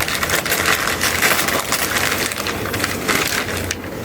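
Gift wrapping being torn open and crinkled by hand: a continuous run of dense crackling and rustling.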